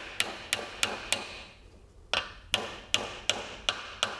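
Hammer tapping a needle-roller bearing cup down into the yoke of a Hardy Spicer universal joint, metal on metal. There is a run of four quick, even taps at about three a second, a pause of about a second, then six more.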